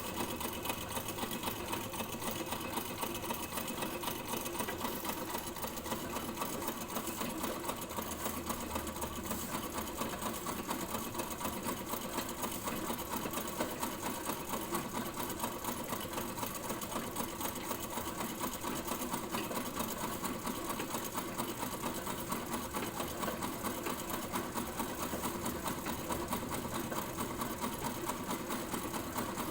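Sewing machine running continuously at a steady, fast stitching rate.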